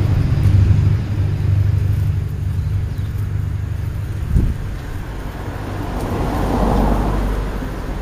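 Motor vehicle passing on a road: a low engine and road rumble, loud at first and fading away, then a second swell of road noise about six to seven seconds in. There is a brief thump a little after four seconds.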